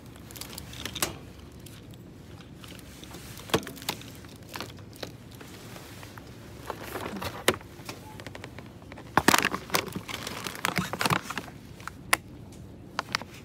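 Supermarket background: scattered clicks, light clatter and rustling over a low hiss, with a busier run of rattling about nine to eleven seconds in.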